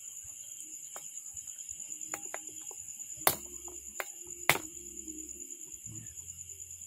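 Meat cleaver chopping and pressing through the tough bones of a bird carcass on a cutting board: a few light knocks, with two sharp cracks about three and four and a half seconds in.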